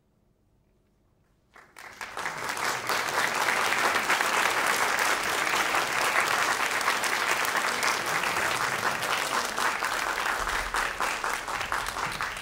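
Near silence, then a small audience breaks into applause about a second and a half in: dense, even clapping that eases a little near the end.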